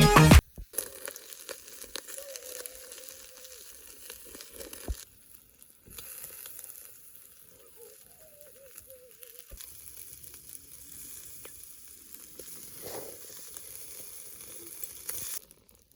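Food sizzling on a shichirin charcoal grill over binchotan, with faint scattered crackles.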